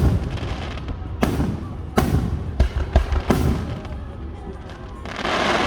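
Aerial fireworks bursting: a string of about six sharp bangs with echoing tails in the first few seconds, then a hissing, crackling burst near the end.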